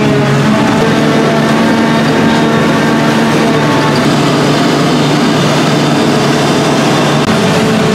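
Forage harvester and tractor running steadily under load while the harvester's spout blows chopped grass into the trailer: a constant heavy machine drone with a steady rushing noise over it.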